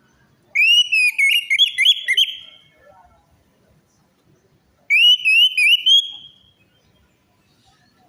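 Orange-headed thrush singing: two loud phrases of quick whistled notes that slur up and down, the first about two seconds long, the second about a second and a half, with a pause of about two seconds between.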